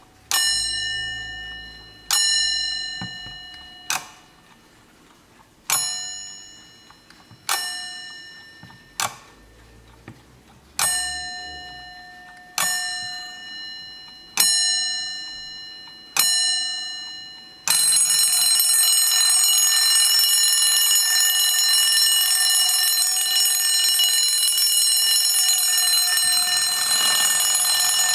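Alarm bell of a 1950s Junghans alarm clock sounding single rings about every two seconds, each fading away, then breaking into continuous ringing for the last ten seconds or so.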